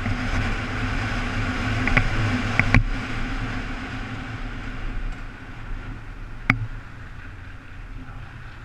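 Motorcycle engine running with wind rushing past, heard from the rider's position, with a few sharp ticks and knocks around a third of the way in and again near the end. The engine and wind get quieter over the second half as the bike slows behind braking traffic.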